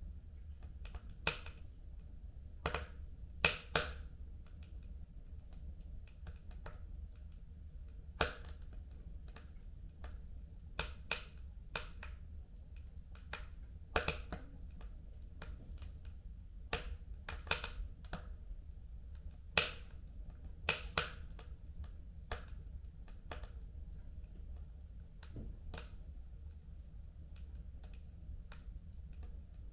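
Fire in a home fireplace crackling: irregular sharp pops and snaps, a few much louder than the rest, over a low steady rumble.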